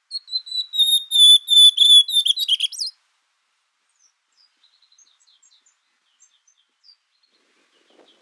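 Ultramarine grosbeak (azulão) singing one loud whistled song phrase of about three seconds: clear slurred notes drifting slightly downward and ending in a quick rising flourish. A few faint, soft high notes follow.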